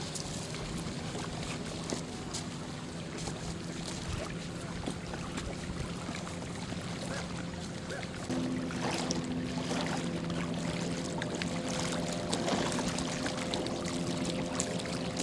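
A steady low engine drone, with water washing and splashing at the river's edge and scattered small clicks. The drone steps a little louder about eight seconds in.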